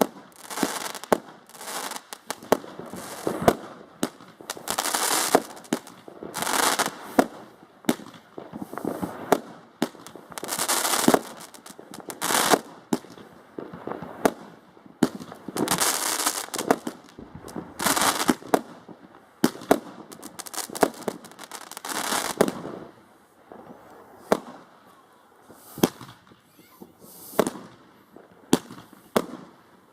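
Consumer fireworks going off: many sharp bangs mixed with repeated crackling bursts about a second long each, growing sparser near the end.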